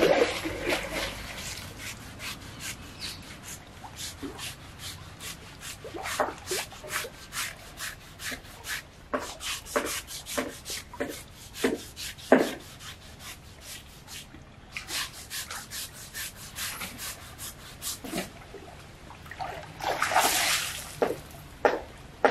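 Hand scrubbing an elephant's trunk and tusk with a coarse scrubber: a run of short rasping strokes, roughly one to two a second. A louder splash of water comes near the end.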